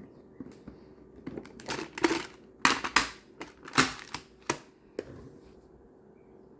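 Plastic magnetic building tiles clicking and clattering as they are handled and snapped together: a run of sharp clacks over about four and a half seconds, the loudest in the middle.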